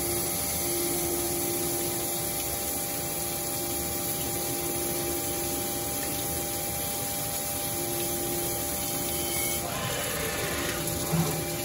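Jones & Shipman CNC cylindrical grinder's wheel grinding a metal part under flood coolant: a steady spray-and-grind hiss over a steady machine hum. The sound shifts near the end as the coolant flow eases off.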